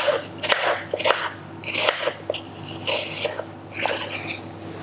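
Kitchen knife slicing through a raw peeled apple on a white cutting board, cutting it into thin slices: a series of crisp crunching cuts, about one every half second to second.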